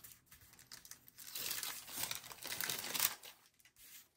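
Paper stickers and their translucent backing sheet being handled and peeled: a crinkling, rustling sound with small crisp crackles, loudest from about a second and a half to three seconds in.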